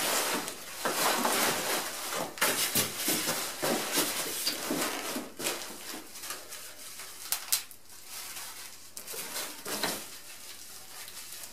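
Plastic bags and bubble wrap crinkling and rustling as packed parts are rummaged through and pulled out of a cardboard box, with a few sharp clicks. Busy at first, thinning out in the second half.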